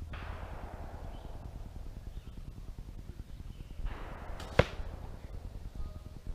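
An arrow comes whooshing in and strikes the foam deer target with one sharp, loud crack about four and a half seconds in.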